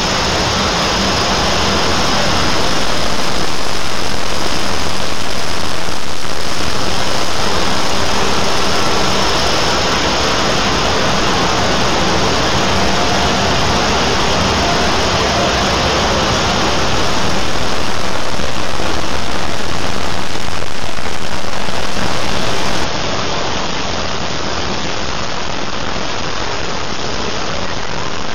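A loud, even roar of noise, the soundtracks of many heavily sped-up video clips layered on top of one another so that no words or tune survive. It swells twice, and the highest hiss cuts off suddenly late on.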